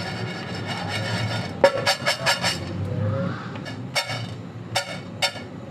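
Coffee beans being stirred as they roast in a pan: a quick run of sharp clinks and scrapes about two seconds in and a couple more near the end, over a steady low hum.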